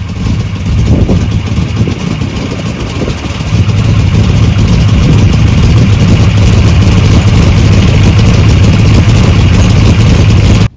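Chevy 350 small-block V8 with a big solid-roller cam and small bullet mufflers, running just after being started. It runs unevenly for the first three or so seconds, then settles into a steady loud run.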